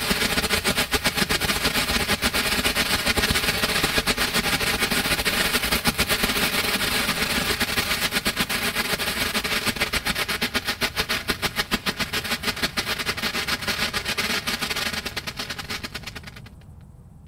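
Two Blinky strobe pellets, F2 firework strobes, burning together and giving a dense, rapid string of sharp pops, one with each flash. The popping dies away near the end as they burn out.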